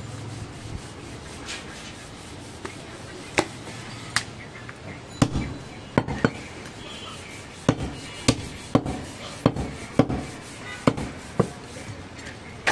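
A butcher's large knife chopping through goat ribs onto a wooden log chopping block: sharp separate chops, starting about three seconds in and coming irregularly, roughly once or twice a second, some in quick pairs.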